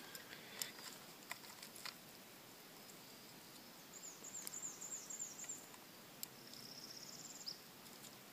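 Faint light clicks of a fork and knife on a cedar plank as cooked trout is flaked apart, a few in the first two seconds. Two runs of rapid high chirping trills sound in the background, about four seconds in and again near the end.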